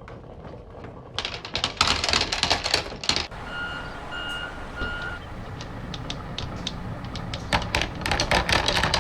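Marbles clattering down a wooden marble run in fast rattling runs of clicks, one about a second in and another near the end, with scattered single clicks between. Three short beeps sound in the middle.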